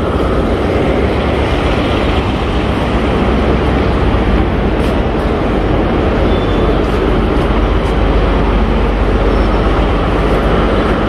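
Steady, loud din of a busy railway station concourse, a constant noisy hum with a strong low rumble and a few faint ticks.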